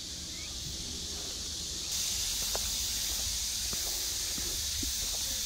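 Steady high-pitched drone of summer insects, louder after a cut about two seconds in, with footsteps on a paved path.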